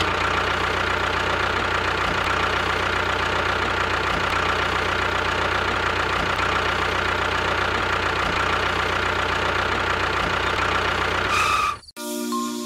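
Diesel tractor engine idling steadily with an even knock. It cuts off abruptly near the end, and a short chiming tune begins.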